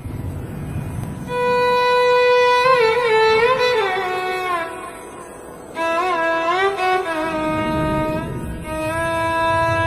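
Background music: a single melody line of long held notes broken by quick ornamented, wavering turns.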